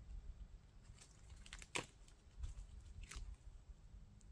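A few faint, sharp crackles and rustles from a small fire of cherry bark and wet sticks being lit, the clearest snap a little under two seconds in. The fire is catching only slowly because the wood is very wet.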